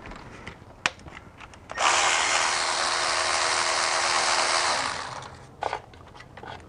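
A pressurised spray hissing steadily for about three seconds, starting about two seconds in and tapering off near the five-second mark, with a faint steady tone under the hiss. A light click comes about a second in.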